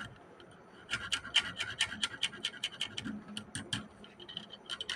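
Sandpaper scrubbed quickly back and forth over a rusted metal terminal of a UPS module, about six rasping strokes a second, starting about a second in. It is rubbing off rust that can make the voltage go up and down.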